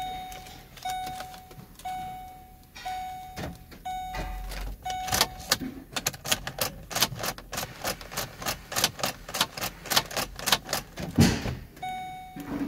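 Ford Expedition warning chime dinging about once a second, stopping after about five seconds and starting again near the end. In between comes a quick run of sharp clicks, about four a second, as the ignition key is worked during remote-key programming.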